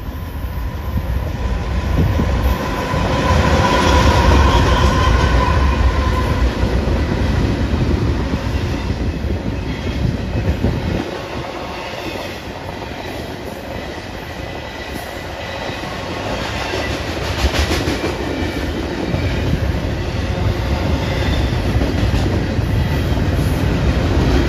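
BNSF double-stack intermodal freight train passing close by. The diesel locomotives go by in the first few seconds, loud with a steady high whine over the engine rumble. Then the container well cars roll past with a continuous rumble and occasional clacks of the wheels over the rail.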